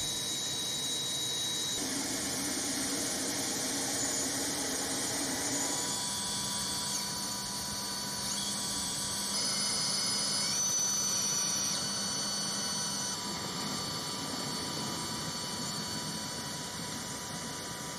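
Steady aircraft turbine whine over a rushing hiss, with several thin high-pitched tones that shift and step up in pitch around the middle.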